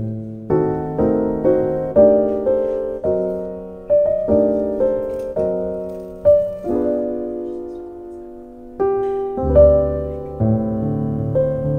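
Background piano music: a slow melody over chords, with deeper bass notes coming in about nine and a half seconds in.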